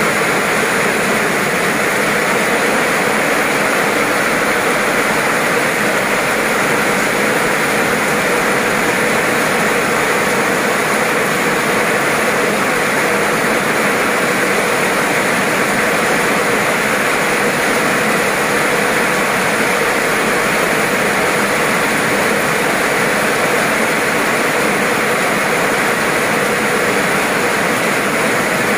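Heavy tropical downpour pouring onto pavement and puddles: a loud, steady rush of rain.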